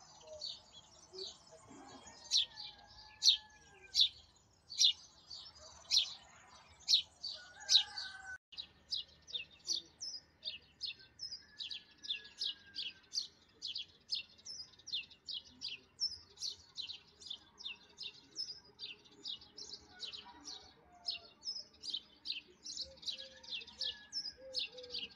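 A small bird chirping over and over in short, sharp, high chirps, about two a second at first and quickening to two or three a second after about eight seconds.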